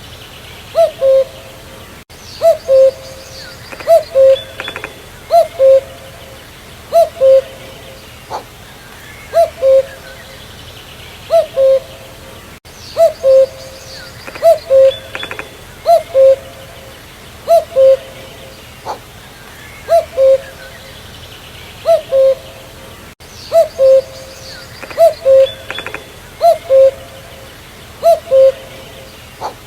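Common cuckoo (Cuculus canorus) calling its two-note cu-coo, a higher note dropping to a lower one, repeated every one and a half to two seconds, with faint chirps of other birds behind.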